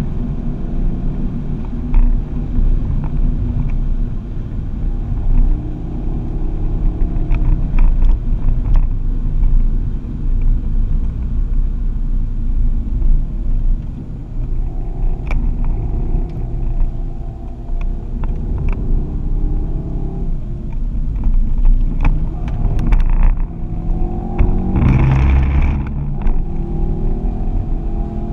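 Ford Focus ST engine heard from inside the cabin on a fast lap, its note rising and falling as it is driven hard through the gears, over a steady rumble of road and tyre noise. There are occasional sharp clicks, and a louder rush of noise about 25 seconds in.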